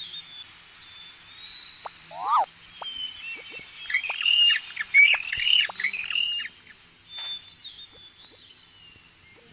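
Birds calling: a single short chirp, then a loud run of repeated squawking calls about four to six seconds in, over a steady high hiss of outdoor ambience.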